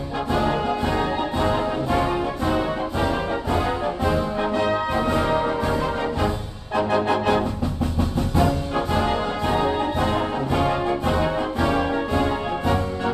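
Orchestral music led by brass, with a steady beat and held chords; it drops away briefly about halfway through.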